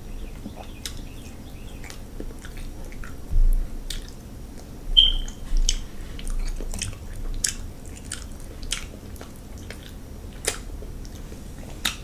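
Close-miked wet chewing and lip smacking from someone eating sauced king crab, with many short sharp clicks of the mouth and a few low thumps.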